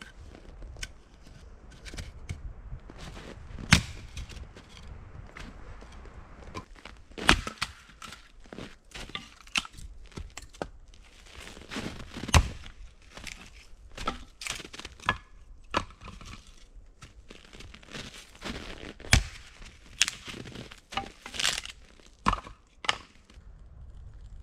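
Wood being chopped: irregular sharp knocks and cracks, the hardest strikes about 4, 7, 12 and 19 seconds in, with smaller crunching and snapping sounds between them.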